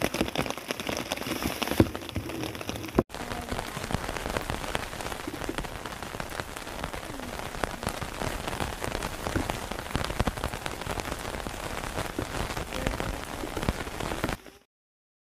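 Steady rain pattering on a tarp, a dense spread of small drop ticks. It cuts off suddenly near the end.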